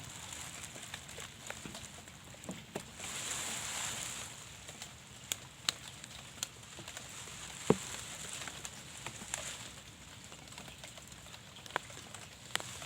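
Rain outdoors: scattered sharp taps of single drops over a faint steady hiss, with a brief swell of heavier rain about three seconds in.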